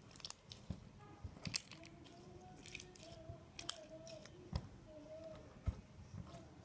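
Sticky slime being squeezed and pulled by hand, giving irregular squelchy clicks and pops.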